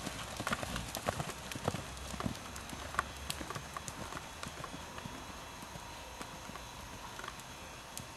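Hoofbeats of a ridden horse on the sand footing of a riding arena, a run of soft thuds. The thuds are strongest and most frequent in the first three seconds and grow sparser and fainter after that.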